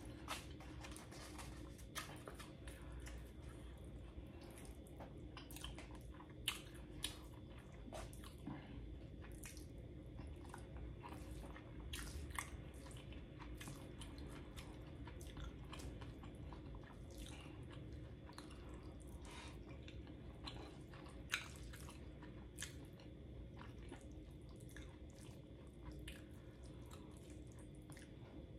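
Close-miked chewing and wet mouth sounds of a person eating a burrito bowl, with scattered sharp clicks and taps of a fork scooping against the bowl.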